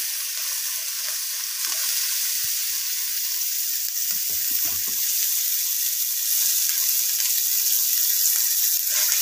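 Oil sizzling steadily as chopped greens fry in a nonstick kadhai, with a spatula stirring and scraping through them a few times about halfway through.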